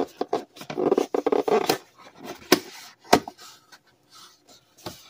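Cardboard box being pried open by hand, its flaps scraping and rubbing, with two sharp snaps around the middle.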